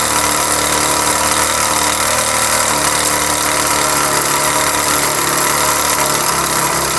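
Honda CD70's single-cylinder four-stroke engine idling steadily with a knocking "dug dug" noise, which the mechanic traces to a worn-out connecting rod and its bearings.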